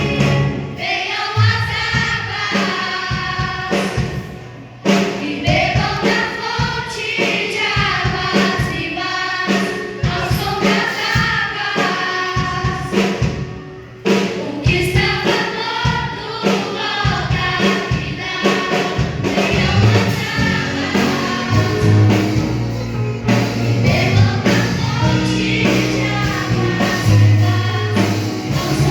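A choir singing a gospel song with band accompaniment and a steady beat; the music drops briefly twice, about five seconds in and again near the middle.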